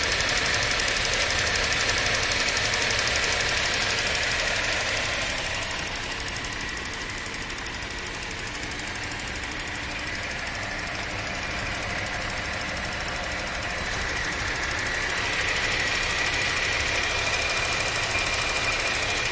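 Chevrolet Captiva 3.2 V6 engine running with a rapid, persistent ticking knock, which the owner puts down to a hydraulic lash adjuster (lifter) that is not yet pumped up. The engine sound eases off about six seconds in and grows louder again from around fifteen seconds.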